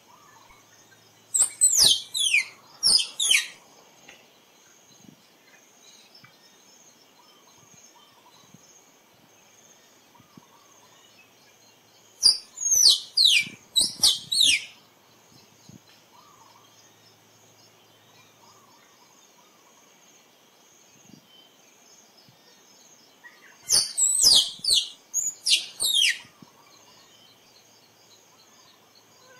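Tree squirrel calling: three bouts of quick, high-pitched chirps, each chirp falling in pitch, about ten seconds apart. A faint, steady insect drone runs underneath.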